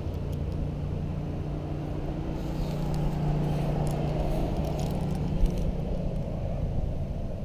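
Road traffic: a passing vehicle's engine hum and tyre rumble, growing louder through the middle and easing off again.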